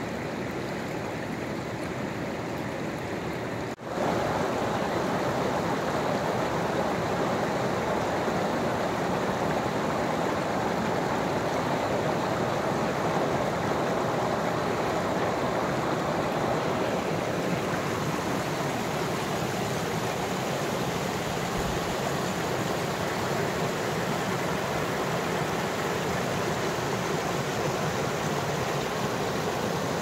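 The River Ure rushing and splashing over limestone ledges and rocks in low water, a steady rush of running water close to the microphone, briefly broken about four seconds in and a little louder after.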